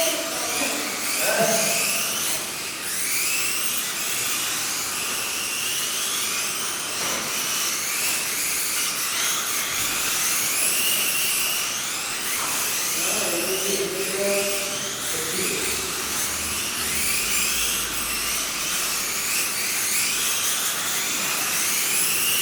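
Several Kyosho Mini-Z radio-controlled cars' small electric motors whining, their pitch rising and falling over and over as they speed up and slow down around the track. Faint voices are heard about two-thirds of the way in.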